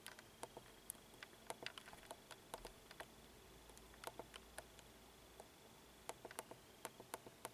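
Faint, irregular small clicks and taps, more than a dozen scattered through, over quiet room tone with a faint steady high whine.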